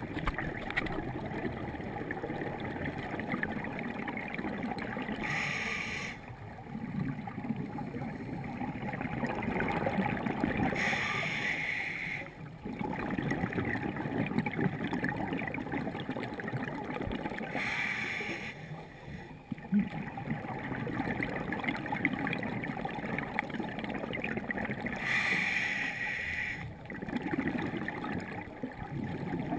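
Underwater sound of scuba breathing: four bubbling exhalations from a diver's regulator, each lasting a second or two and coming about every seven seconds, over a steady low rumble of water moving past the microphone.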